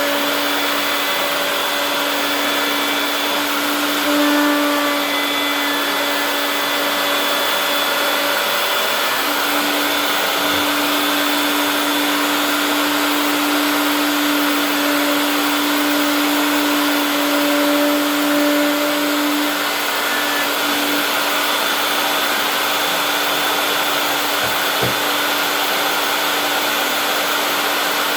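Router motor in a router table running at speed: a steady, high motor whine over a loud rushing noise, the whine wavering and dipping slightly a few times.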